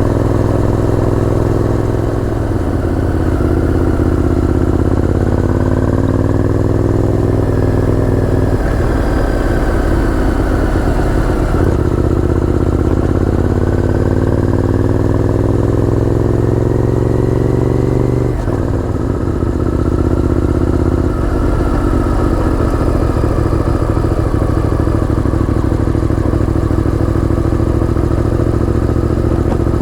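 Honda VTR1000F's 90-degree V-twin engine running under way. Its pitch climbs as the bike pulls, then drops sharply at each of several gear changes.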